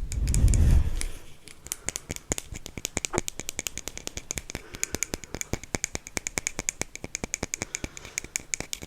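A muffled low thump in the first second, then a fast run of crisp clicks and taps, several a second and fairly even, from close-up ASMR tapping on a hard object.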